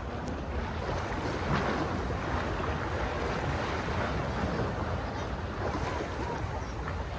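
Sea waves washing steadily onto the shore, with wind buffeting the microphone and adding a low rumble.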